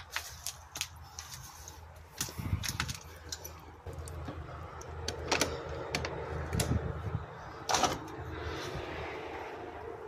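Footsteps on a debris-strewn floor, with scattered sharp clicks and knocks and a low steady hum underneath.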